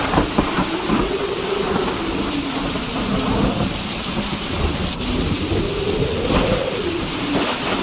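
Steady rain falling, with rumbling thunder.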